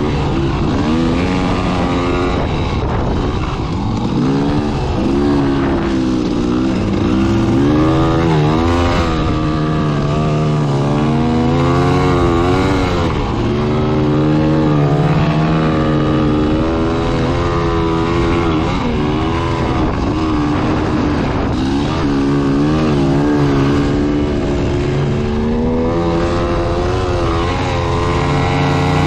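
Dirt bike engine running under load, its revs climbing and dropping over and over, every few seconds.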